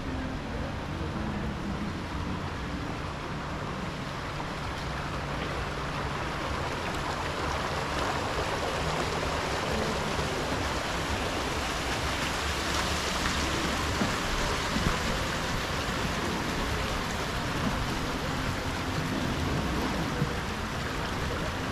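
Water splashing from a row of small fountain jets in a shallow stone channel: a steady rushing splash that grows louder about a third of the way in and stays up.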